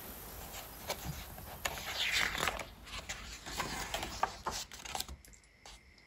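Paper rustling and brushing as a picture book's page is turned, with a few light taps and clicks from handling the book.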